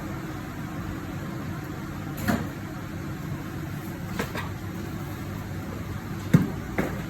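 Scattered clunks and knocks from tyre-change work, four in all, the loudest about six seconds in, over a steady low hum.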